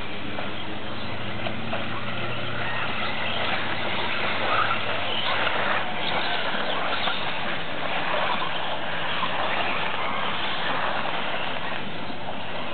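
Electric 1/10 4WD off-road RC buggies racing, their brushless motors whining as they accelerate and brake, over a steady wash of tyre and track noise. The whines come thickest about halfway through.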